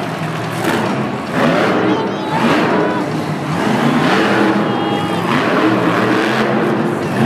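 Monster truck engines revving hard in repeated swells, rising and falling about once a second.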